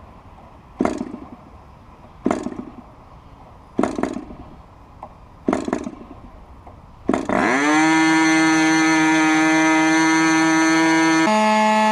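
Raduga R10R 10 cc glow-plug model-aircraft engine being started by flicking its propeller by hand: four short pops about a second and a half apart, then it catches about seven seconds in, revs up quickly and runs at a steady high-pitched buzz, its tone shifting abruptly near the end.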